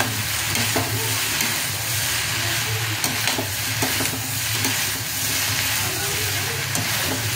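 Idli cubes and vegetables sizzling in a hot metal kadai as a slotted spatula stirs and turns them, with occasional clicks and scrapes of the spatula against the pan over a steady low hum.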